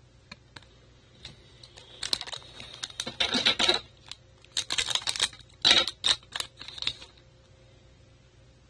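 Foil trading-card pack wrapper crinkling and crackling in the hand in several bursts, after a few light clicks of cards being handled.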